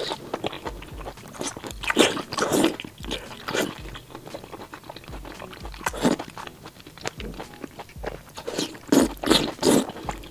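Close-miked eating sounds as soft, pre-braised pork intestine is sucked into the mouth and chewed, in irregular wet slurps and chews.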